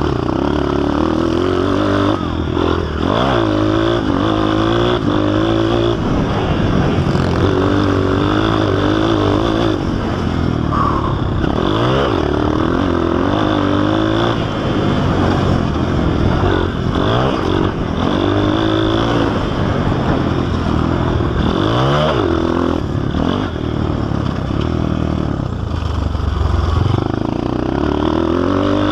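Honda CRF230 dirt bike's single-cylinder four-stroke engine under hard riding, heard close from on board. It repeatedly rises and falls in pitch as the throttle is opened and shut and the rider shifts through the gears.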